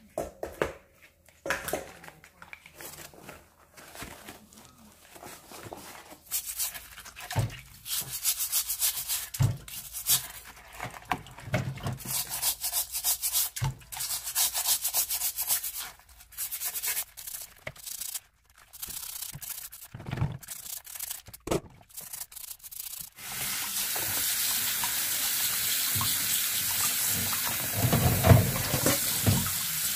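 A brush scrubbing the shells of live abalone in a sink of water, in bursts of rapid rasping strokes with an occasional knock of shell on the basin. About 23 s in, a tap starts running steadily into the sink.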